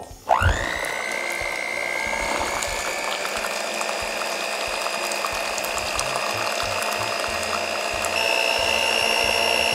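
Electric hand mixer beating cake batter on low speed: its motor spins up about a second in to a steady whine, which steps up slightly in pitch and loudness near the end.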